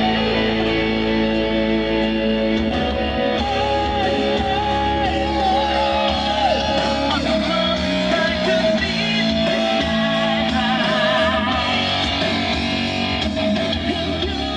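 Rock music with electric guitar, a bending, wavering lead line over steady bass, playing through a car audio system with a Kicker L5 10-inch subwoofer.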